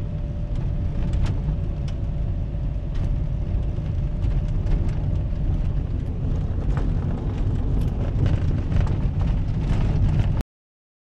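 Low rumble inside a vehicle's cab as it drives slowly along a rough dirt farm track, with scattered small clicks and knocks from the tyres on the stony surface. The sound cuts off suddenly shortly before the end.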